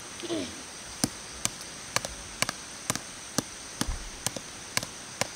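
Small hatchet tapping into a thin stick of wood to split kindling: a run of light, sharp knocks, roughly two to three a second, starting about a second in.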